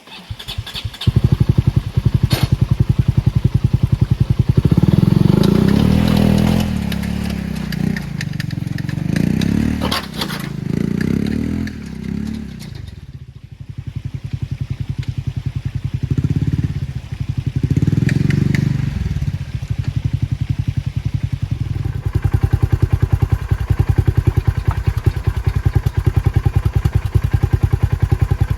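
Ranger utility vehicle's engine starting about a second in, then revved up and down in two long spells while the stuck Ranger tries to pull free, with a short drop-off between them, before it settles to steady running.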